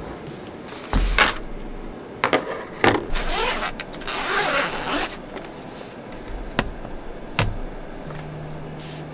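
A laptop and its padded fabric sleeve handled on a wooden desk: a few knocks as they are set down, and a longer rasping rustle in the middle as the sleeve is opened and the laptop slid out.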